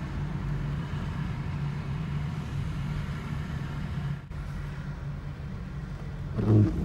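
Steady car-interior road noise while driving on a wet highway: engine and tyre hum. Near the end, a brief louder sound stands out above it.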